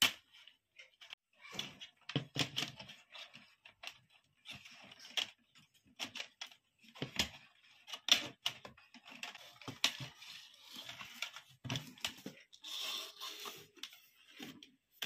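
Handling noise of a plastic LED batten light housing and its wires: scattered clicks and rustles as a wire is pulled out through a hole in the housing and the fitting is moved on a wooden board.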